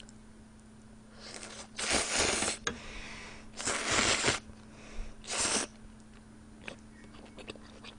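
A person slurping spicy Buldak stir-fried noodles: three long, noisy slurps about two seconds apart, the last one shorter, followed by a few faint clicks.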